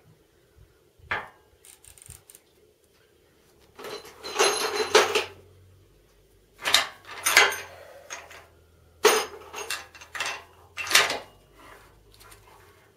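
Metal clicks and clanks of a Barrett 99-1 .50-calibre single-shot bolt-action rifle being handled and reloaded between shots, in several short clusters: one click about a second in, then bunches of clanks in the middle and later on.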